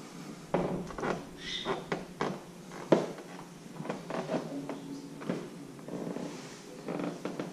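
Footsteps going up a flight of stairs: an uneven run of knocks and thuds, two or three a second, the sharpest about three seconds in.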